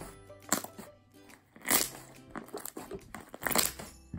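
Freshly borax-activated fluffy glue-and-shaving-cream slime being kneaded and squeezed by hand, giving a few short squishing, crackling bursts as the activator is worked in. Background music plays underneath.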